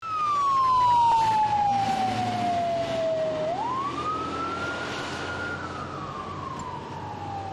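Fire engine siren sounding a slow wail: one tone falling for about three and a half seconds, then climbing quickly and falling slowly again, over a low steady engine hum.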